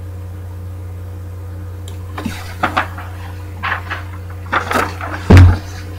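Sheets of paper being handled and swapped, with several short rustles from about two seconds in and a loud dull thump near the end, over a steady low hum.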